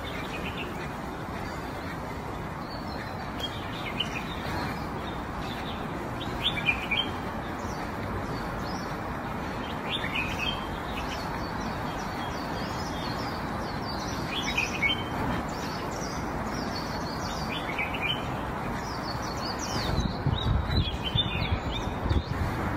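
Small birds chirping in short calls scattered every few seconds over a steady outdoor hiss, with a few low rustling thumps near the end.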